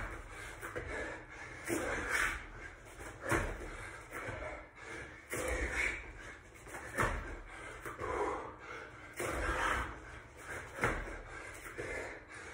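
Repeated thumps of bare feet and hands landing on a thin exercise mat over a wooden floor during burpees, every second or two, with a man breathing hard from the effort between them.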